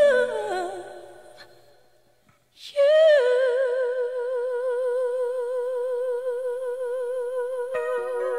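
Background song music: a sung phrase ends and fades out, a brief silence, then a new piece opens with one long held note with a slight vibrato, other notes joining near the end.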